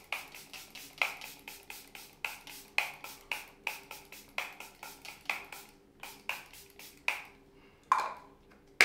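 Makeup setting spray bottle pumped rapidly, about three short hissing sprays a second, misted over the face. It stops about seven seconds in and is followed by two sharper clicks near the end.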